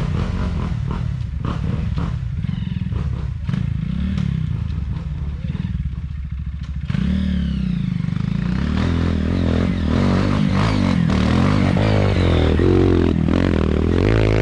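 Off-road trail motorcycle engines running and revving up and down, getting louder from about seven seconds in.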